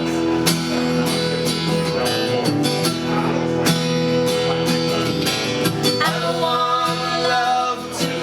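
Acoustic guitar strumming chords in the instrumental opening of a song, with a steady rhythm.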